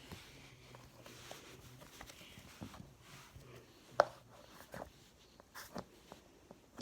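Slime being squished and poked, giving faint sticky clicks and small pops, with one sharper pop about four seconds in.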